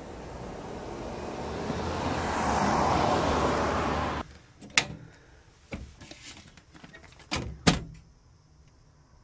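A road vehicle passing by, its noise swelling to a peak about three seconds in and then cut off abruptly. After that come a few separate sharp clicks and knocks, the loudest near the end.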